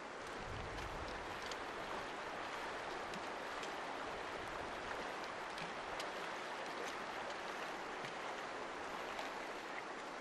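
Shallow, stony river running over rocks: a steady rush of water, with a few faint clicks.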